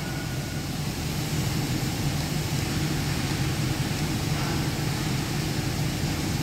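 Steady drone of running plant machinery: a low hum under a constant rushing noise, such as a forced draft fan and pumps give off.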